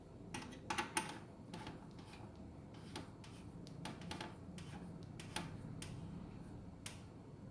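Irregular light clicks and ticks from an Allen key working small screws into a visor bracket's rubber mounts, about a dozen scattered through the stretch over a faint low hum.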